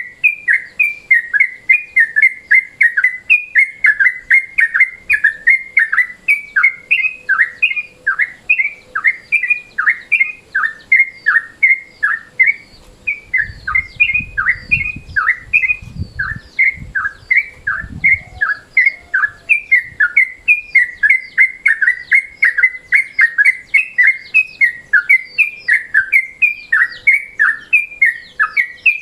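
Yellow-vented bulbul (trucukan) giving its daytime chattering call: a rapid, unbroken run of short, sharp notes, about three a second. A faint low rumble sits under it in the middle.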